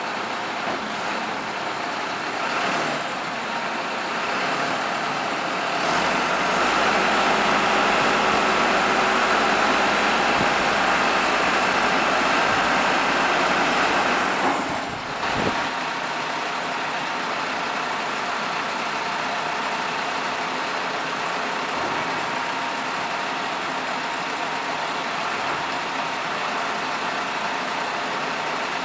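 Mini backhoe loader's engine running steadily, louder for several seconds in the middle, with a brief break about halfway through.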